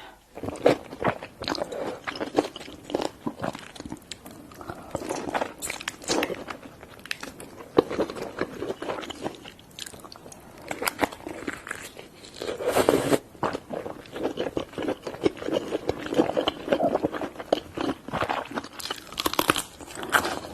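Close-miked eating of king crab legs: irregular cracking and crunching of shell mixed with chewing and mouth sounds.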